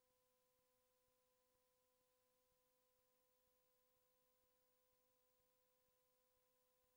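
Near silence, with only a very faint steady electrical tone.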